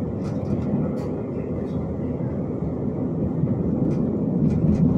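Interior running noise of a Hyundai Rotem 142N low-floor tram in motion: a steady low rumble of wheels on rail and running gear, with scattered light clicks and rattles, a few of them near the end.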